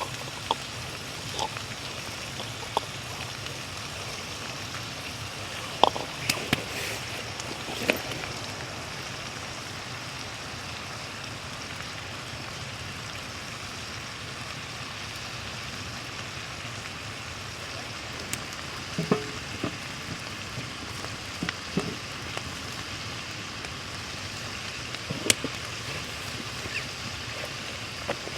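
Food sizzling in a cast iron pan over an open fire: a steady frying hiss with scattered sharp pops and clicks.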